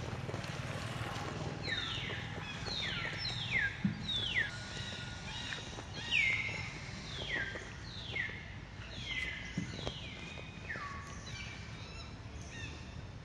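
A long run of short, high calls, each sliding quickly downward, repeated about once a second over a low steady rumble, with a couple of soft knocks.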